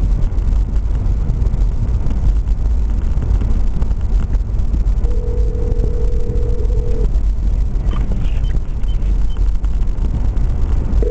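Steady low rumble of a car driving, heard from inside the cabin. About five seconds in, a single two-second telephone ringback tone plays from the car's hands-free phone as the call rings out.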